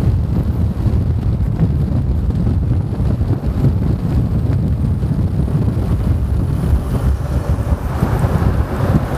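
Heavy wind buffeting on the microphone of a camera moving along a road, a steady low rumble. About eight seconds in, the noise of a large lorry passing close alongside rises over it.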